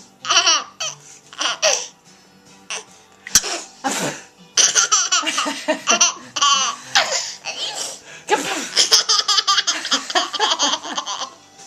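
Someone laughing hard in repeated high-pitched bursts, breaking into a long unbroken run of quick laugh pulses about halfway through.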